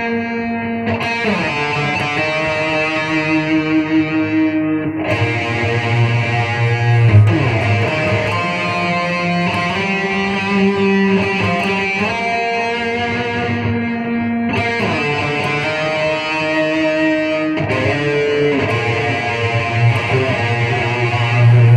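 Electric guitar played through a Zoom G1Xon multi-effects processor on a smooth, melodious lead patch: single-note melody lines with long held notes and pitch slides between them.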